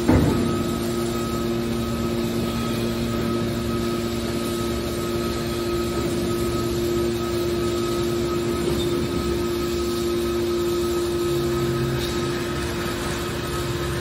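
Hydraulic power unit of a TCM HC81T-630 horizontal scrap metal baler running with a steady whine while the lid cylinders swing the press lid shut. A single clunk comes right at the start.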